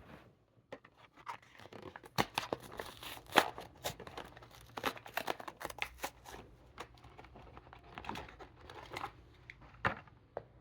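A Hot Wheels blister pack being torn open: the cardboard card ripping and the plastic blister crinkling in irregular crackles and tears, loudest about three seconds in and again near the end.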